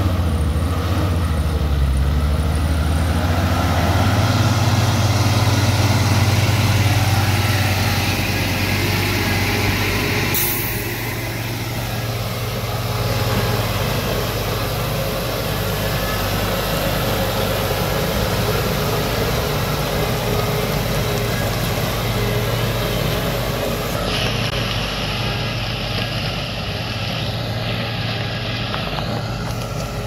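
Diesel engine of a small bus labouring in low gear on a rough dirt road, its note climbing over the first few seconds and then running steadily. A short burst of hiss about ten seconds in.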